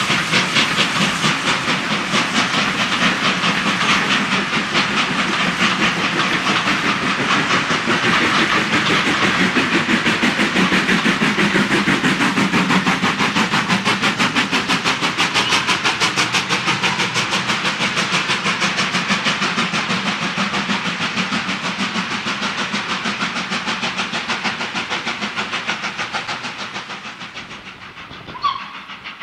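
Steam locomotive working away with a fast, even exhaust beat over the rumble of its coaches on the rails, fading after about twenty-six seconds. Two short high chirps near the end.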